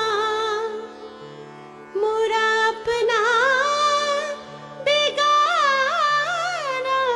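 Music in an Indian classical style: a single melody line that slides and bends between notes, with a short break about a second in, over sustained low notes.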